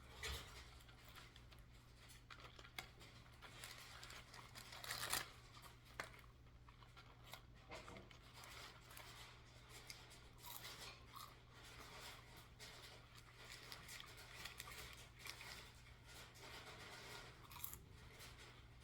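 Faint close-up eating sounds: crunching and chewing of fried chicken tenders and fries, with scattered small crackles and rustles, the loudest about five seconds in. A low steady hum runs underneath.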